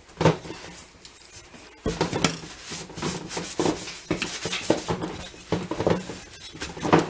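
Dog chewing and biting at an object, amid irregular clattering knocks.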